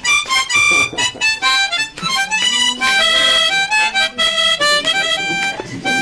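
Harmonica played in a quick melody of short notes and chords, with a brief wavering passage midway.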